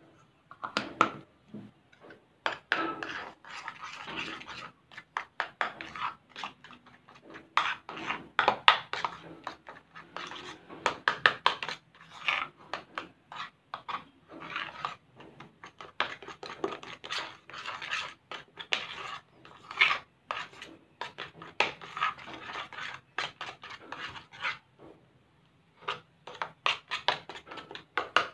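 Metal spoon stirring a thick mix of shaving foam and glue in a ceramic bowl: irregular wet scraping strokes with the spoon knocking and scraping against the bowl, pausing briefly now and then.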